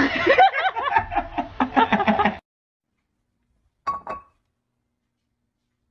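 Loud bursts of human laughter, rapid and rising and falling in pitch, cut off sharply after about two and a half seconds; a brief clicking sound follows about four seconds in.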